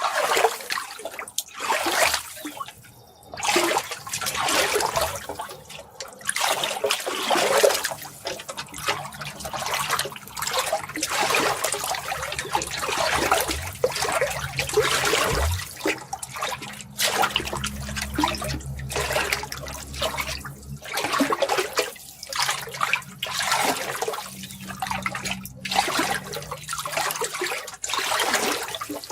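Water running and splashing in uneven surges that swell and fall every second or two.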